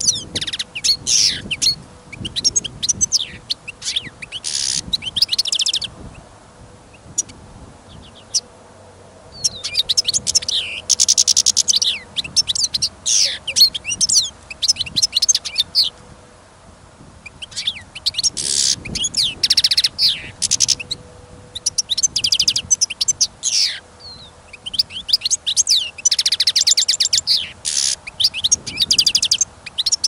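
Small finches singing in long bouts of rapid, high twittering and trills, four bouts of several seconds each with short pauses between them.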